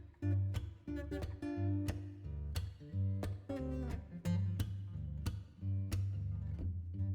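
Music: plucked acoustic guitar notes over a steady bass line.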